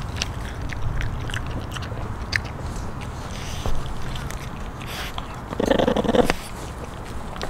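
French Bulldog puppy chewing a raw whole chicken: irregular wet crunches and clicks as it bites through the bones and tears at the meat. A brief louder rasping sound comes near the end.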